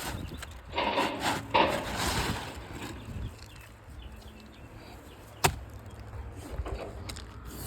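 Roofing shingles being handled and worked: scraping and rustling for the first few seconds, then a single sharp knock about five and a half seconds in.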